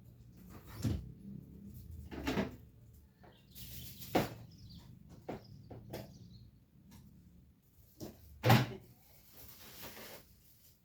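Scattered knocks and clatters of household objects being handled, six or so separate strikes, the loudest about eight and a half seconds in.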